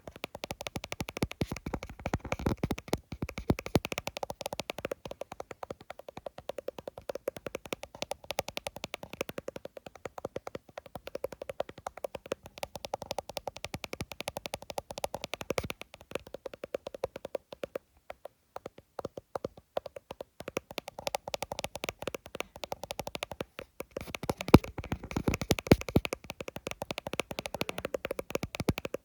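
Fast tapping on an iPhone: quick clicks many times a second, with a short lull about two-thirds of the way through.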